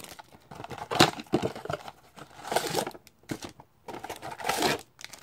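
Plastic shrink-wrap crinkling and tearing as it is pulled off a trading-card blaster box and a card pack is lifted out, in several short noisy bursts.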